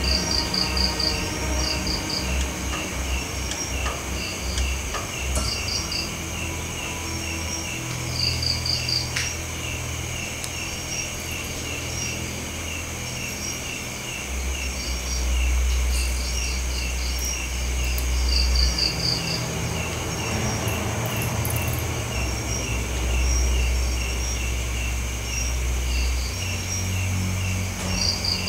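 Night insects: crickets chirping in a steady, regular rhythm, with a higher insect trilling in short pulsed bursts every couple of seconds, over an uneven low rumble.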